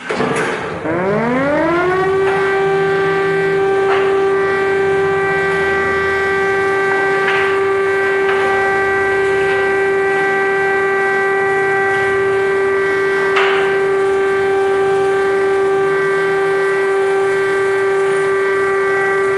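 Civil defence siren winding up, its pitch rising over about two seconds, then holding one steady, loud tone.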